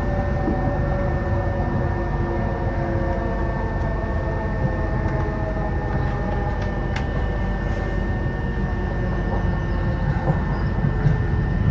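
Electric passenger train running at speed, heard from inside the carriage: a steady rumble with a whine of several even tones and a thin high tone above it. There is a single sharp click about seven seconds in.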